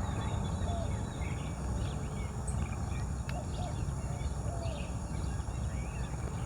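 Several birds giving short, scattered calls over a steady low rumble.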